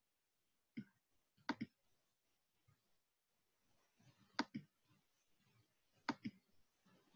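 Faint computer clicks while searching for a file: a single click, then three quick double clicks spaced a couple of seconds apart.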